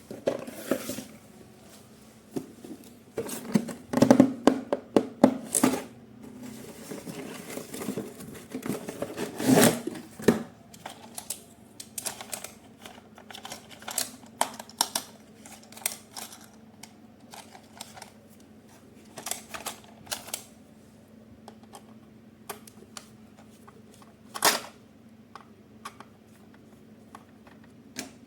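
Irregular clicks and light rattles of a plastic RC toy being handled, densest in the first ten seconds and sparser afterwards, over a faint steady hum.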